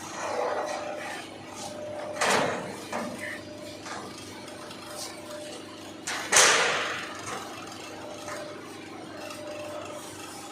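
A CNC press brake humming steadily, with two loud clanks about four seconds apart, the second the louder and ringing on briefly, and a few lighter knocks between them.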